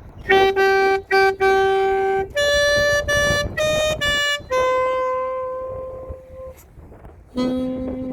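Alto saxophone playing a slow melody unaccompanied: a few short repeated notes, a higher phrase, then a long held note that fades away. After a short pause a new, lower phrase begins, with low wind and street noise underneath.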